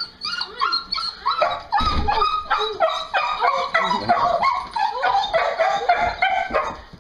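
Beagle whining and yipping in a rapid, almost unbroken string of short high cries that gets busier about a second and a half in: an excited greeting.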